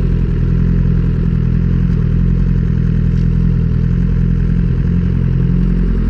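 Sport motorcycle engine idling steadily at an even, unchanging pitch.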